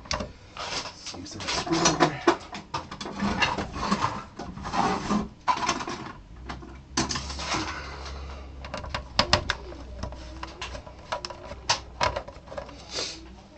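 Clicks, scrapes and small rattles of a screwdriver and screws being worked on the plastic rear casing of an LCD monitor, with a low hum for a few seconds midway.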